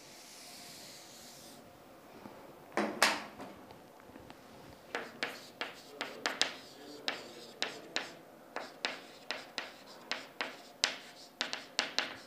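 Pen writing on paper close to the microphone: a soft rub at first, two louder strokes about three seconds in, then a steady run of short strokes, about three a second, from about five seconds in.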